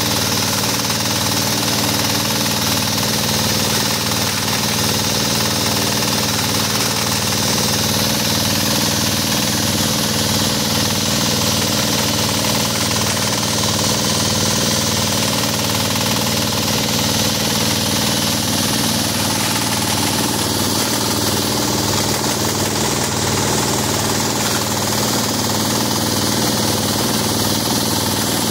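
Single-cylinder stationary diesel engine running steadily under load, driving a JF 50 Maxxium forage chopper that chops whole green corn plants for silage, with an even, rapid knocking beat.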